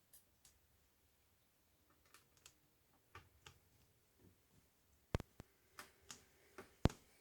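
Scattered small clicks and taps from hands working on an open laptop, with two sharper knocks, one about five seconds in and one near the end.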